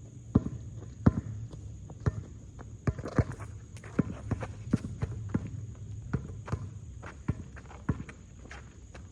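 A basketball being dribbled on a hard court, with footsteps: irregular sharp thuds, about one or two a second.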